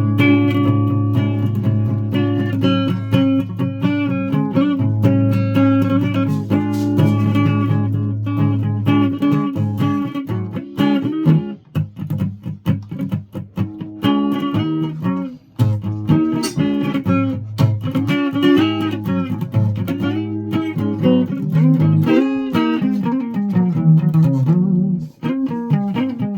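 Guitars played in a loose jam, plucked notes over a held low note, untuned. The playing breaks off briefly a few times in the second half.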